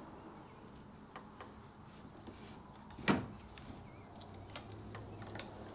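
Small clicks and knocks of a plastic pipe bracket and PEX tubing being handled against a wooden block, with one louder knock about three seconds in.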